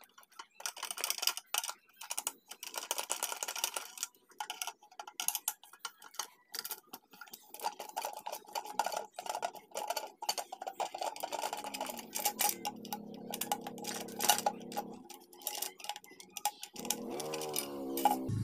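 Irregular clicks, taps and scrapes of plastic and metal as a TOA horn speaker's driver unit is handled, unbolted and lifted off its housing.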